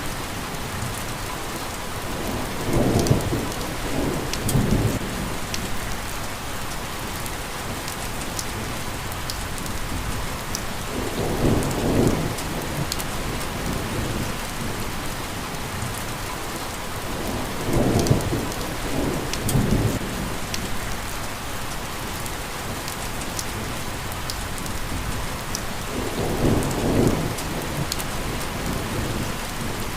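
Steady rain falling, with thunder rumbling four times, each rumble swelling and fading over a second or two.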